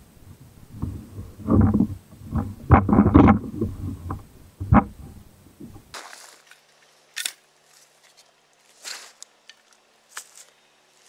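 Knocks, scrapes and low rumbling of the plastic Pelican Mustang kayak hull bumping and rubbing as a man climbs out of it at the shore. About six seconds in it cuts to much quieter sound: a few sharp clicks and faint rustles of camp gear being handled.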